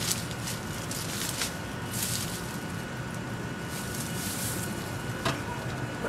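Rustling and light handling noises while the wooden roof of a top bar beehive is lifted and moved, with a single sharp knock a little past five seconds in. A faint steady high tone sits underneath.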